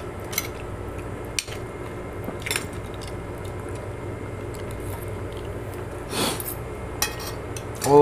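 Forks and spoons clicking and scraping on ceramic plates while eating. The clicks are short and sparse, with one louder, longer noise about six seconds in, all over a low steady hum.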